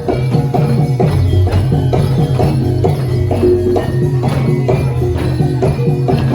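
Live Javanese gamelan music accompanying a jaranan horse dance: quick, dense percussion strikes over held gong-like tones.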